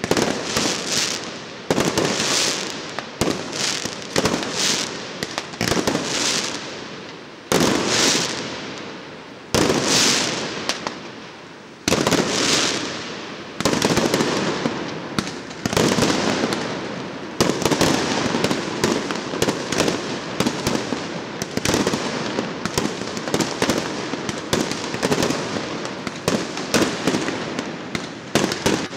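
Fireworks display: aerial shells bursting with sharp bangs one after another, each trailing off in crackle. About halfway through the bursts come thick and fast into a dense, continuous crackling and banging.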